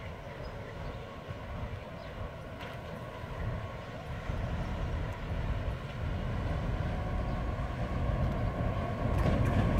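Serbia Cargo class 661 diesel locomotive (EMD G16, with a 16-cylinder two-stroke EMD 567 engine) approaching along the track. Its engine drone and rumble grow steadily louder, with a further rise near the end.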